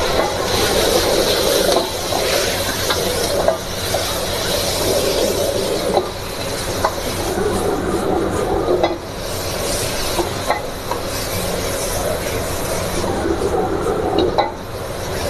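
Chicken and vegetables stir-frying in a wok over a high gas flame: a steady sizzle over the burner's low rumble, swelling and easing as the food is tossed, with the metal ladle clinking against the wok now and then.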